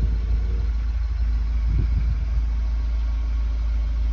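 Cupra Formentor 2.0 TSI's turbocharged four-cylinder petrol engine idling through a new four-tip exhaust: a steady, low sound with no popping or crackling.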